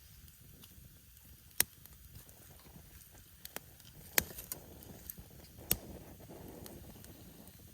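Wood campfire crackling: a handful of sharp, scattered pops over a quiet steady background.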